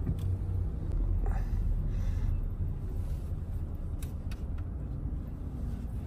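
Steady low rumble of a car as it is being parked, heard from inside the cabin, with a few faint clicks.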